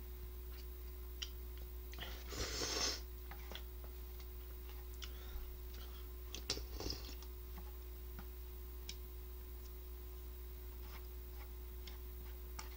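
A person eating rice noodles with chopsticks: a slurp about two and a half seconds in and a shorter one around seven seconds, with scattered small clicks of chopsticks and chewing, over a steady faint hum.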